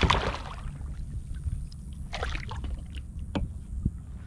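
Water splashing beside a kayak as a redfish is held in the water to revive it before release, with a sharp knock on the hull a little after three seconds in.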